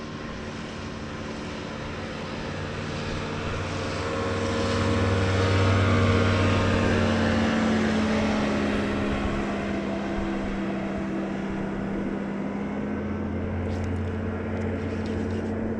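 A passing engine's steady hum grows to its loudest about six seconds in, then eases off and keeps running.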